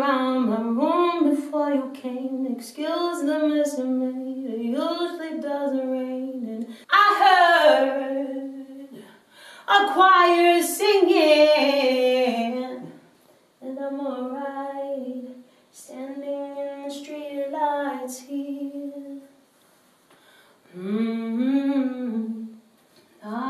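A woman singing a cappella: one unaccompanied voice in melodic phrases, with short breaks where the edit cuts between excerpts of different songs.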